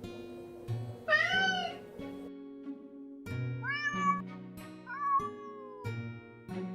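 Domestic cat meowing three times over background music: one loud meow about a second in, then two softer meows, the last drawn out and falling in pitch.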